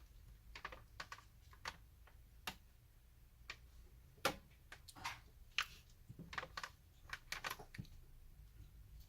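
Faint, irregular small plastic clicks and taps as the parts of a PS4 controller are handled and pressed into place during reassembly.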